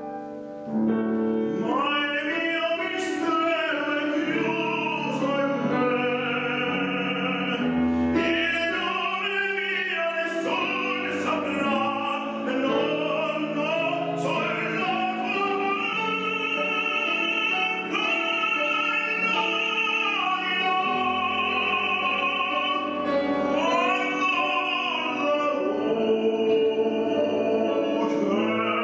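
A man singing opera with a wide vibrato, accompanied on a grand piano. After a brief break, the voice comes back in about a second in and carries on through a long, flowing phrase.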